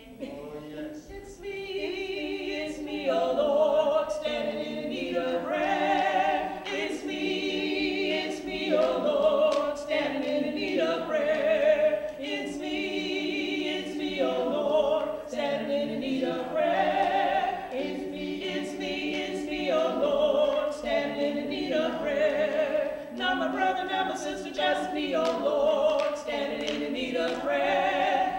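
Voices singing a church song together without instruments, with hands clapping along.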